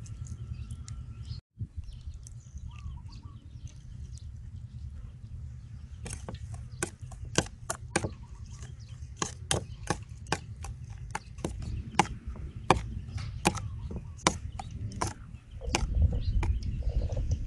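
Metal spoon clinking and scraping against a bowl while stirring a chili-garlic sauce, sharp clicks about two or three a second through the second half. A low steady rumble runs underneath and gets louder near the end.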